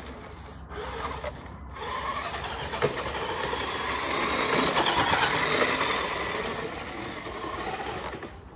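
Electric motor and gearbox of a Tamiya King Hauler RC truck whining as it is driven off-road, the whine rising and falling with the throttle, loudest about midway and easing off near the end.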